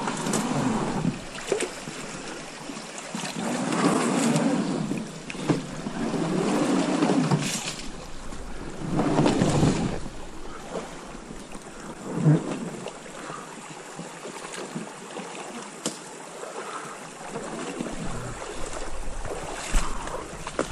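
Inflatable PVC boat being hauled over a beaver dam of sticks: the rubber hull rubbing and scraping over branches with water splashing, in several surges about a second long, mostly in the first half, with a few sharp knocks among them.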